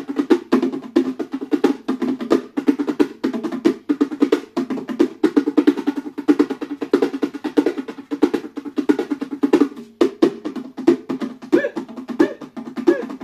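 Pair of bongo drums played by hand: a fast, continuous run of open tones and slaps.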